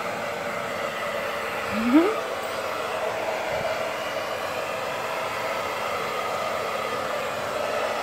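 Handheld hair dryer blowing steadily, a constant rush of air with a faint motor whine. About two seconds in, a short rising voice-like sound rises above it.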